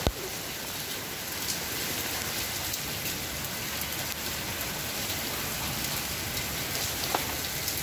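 Hailstorm of large hailstones and rain pelting down on a lawn: a steady, dense hiss with a few sharper ticks of stones striking.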